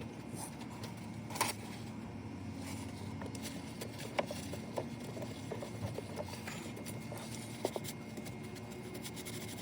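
Scattered light clicks and scrapes of corrosion being cleaned off a car battery terminal, with one sharper click about a second and a half in, over a low steady rumble.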